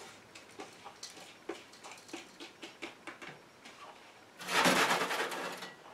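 Light clicks and rustling of ground dried herbs and a plastic bowl and funnel as the herbs are tipped into a glass jar. Near the end, a much louder rustling scrape lasting about a second and a half.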